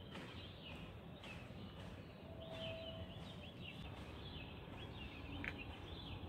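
Small birds chirping repeatedly and faintly, over a low, steady background noise.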